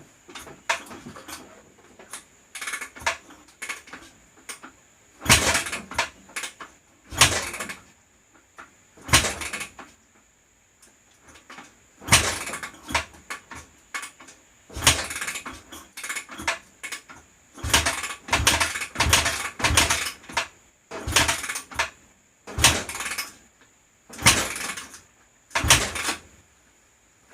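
Honda CRF250R four-stroke single kicked over again and again: short bursts of the kickstarter and the engine turning over, one to three seconds apart, without it firing. It is hard starting from low compression, blamed on valves out of spec and held slightly open.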